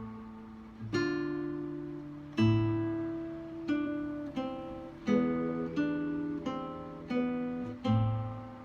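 Acoustic guitar played slowly: chords struck about once a second, each left to ring and fade before the next.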